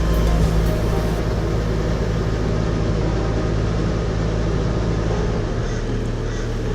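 Power catamaran's engines running steadily under way, a constant low drone with a slight change in its lowest tone near the end.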